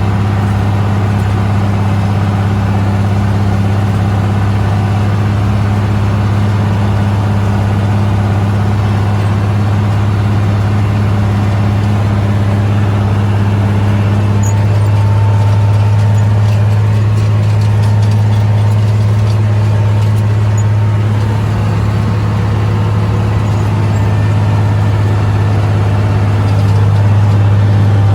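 International tractor's engine running steadily at a constant speed while pulling a disc plough, a deep, even drone that grows slightly louder near the end.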